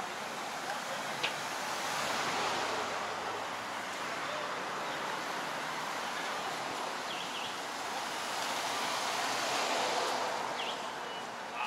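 City street traffic: cars and trucks passing on the avenue, an even rushing noise that swells twice as vehicles go by.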